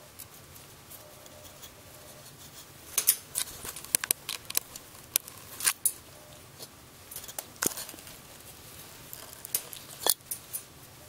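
Irregular light metallic clicks and rattles of a wire cage as a ferret scrambles and climbs about in it, starting a few seconds in.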